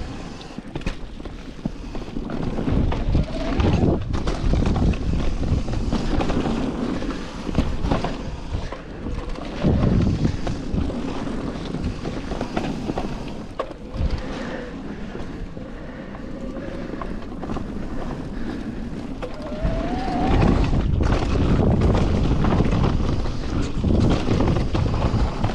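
Yeti 160e electric mountain bike ridden down a forest trail: wind buffeting the microphone over tyre rumble and short knocks and rattles from the bike on rough ground, with louder surges about ten and twenty seconds in.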